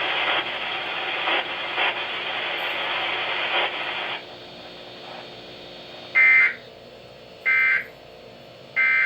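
Weather radio static hiss for about four seconds, dropping to a low hiss, then three short buzzy data bursts about a second and a quarter apart: the Emergency Alert System (SAME) digital end-of-message tones closing the warning.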